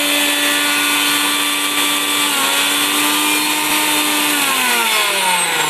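Miyako electric mixer grinder running empty on its lowest speed, with a steady high motor whine and its stainless-steel jar and blade spinning. Near the end it is switched off and the whine falls steadily in pitch as the motor winds down.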